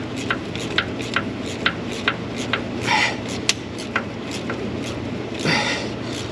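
Hand ratchet clicking in short strokes, with two brief metal scrapes, as a starter mounting bolt is turned in. The clicks come about two to three a second.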